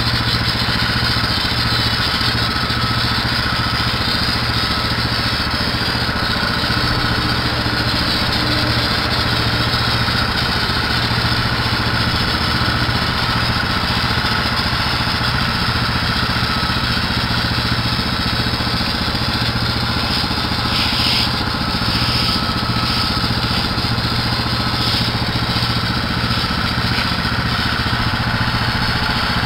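Small engine running steadily at one constant speed, as on a gas-powered washing or spraying rig, with a few short spells of hiss about two-thirds of the way through.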